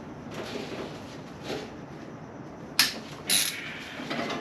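Hand tools clinking on engine fasteners during a teardown: two sharp metallic clicks about half a second apart, the second briefly rasping.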